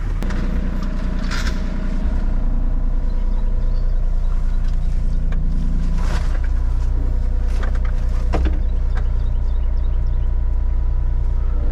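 Diesel engine running steadily, its sound pulsing fast and even, with a few sharp metallic clanks about a second and a half, six and eight and a half seconds in.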